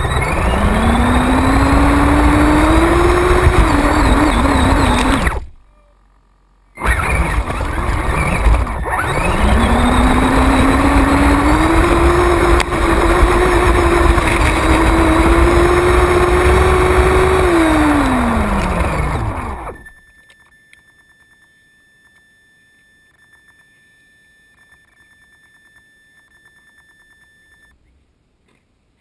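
Radio-controlled off-road truck's motor and drivetrain, heard from on board: a whine rising in pitch as it speeds up, cut off for about a second near 6 seconds in, then rising again, holding at speed and falling away until it stops about 20 seconds in. Only faint steady tones follow.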